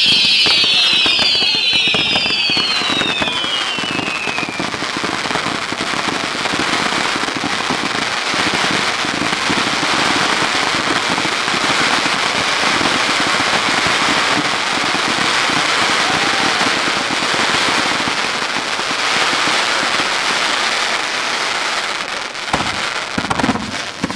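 Firework fountains spraying sparks with a dense, steady crackling hiss. In the first few seconds several whistles fall in pitch over it.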